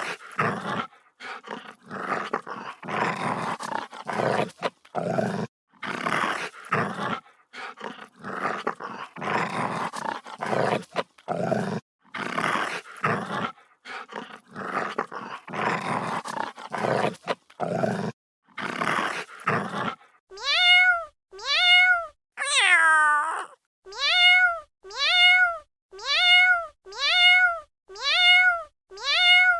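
An animal growling in short, rough bursts for about twenty seconds, then a cat meowing over and over, evenly spaced at about one meow a second.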